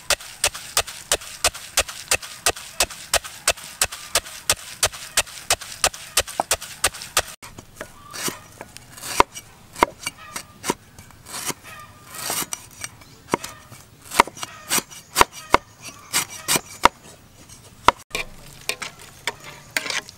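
Wooden pestle pounding peanuts in a mortar, a steady beat of sharp knocks about four a second. About seven seconds in, it gives way to a cleaver chopping lemongrass on a wooden board, in uneven strokes, some loud.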